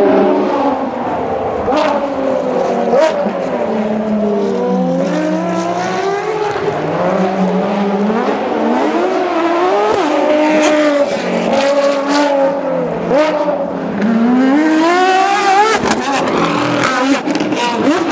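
Ferrari XX-programme race cars' V12 engines driven hard around a tight circuit, the revs repeatedly climbing and falling as they shift through the gears. A few sharp cracks come between the rising runs.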